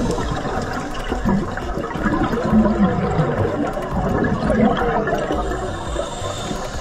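Underwater water noise picked up by a diver's camera, a steady rushing wash with bubbling gurgles, as from scuba exhaust bubbles.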